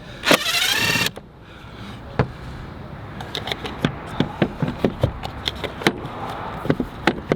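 Plastic air filter housing on a Ram 3500 being pulled and worked loose by hand: a brief loud squeak of plastic rubbing near the start, then a string of light clicks and knocks as the housing is handled.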